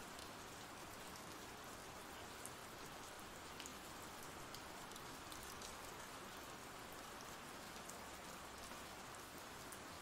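Faint, steady ambient rain sound effect: an even patter of rain with a few sharper single drops.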